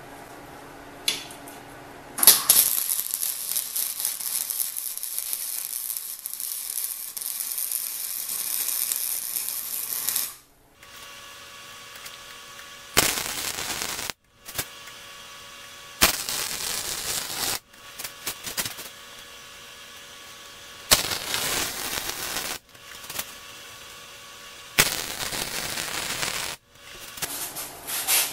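Wire-feed MIG welder arc crackling as fish plates are welded onto steel angle-iron frame rails: one long bead of about eight seconds, then several short welds of a second or two each, with pauses between them.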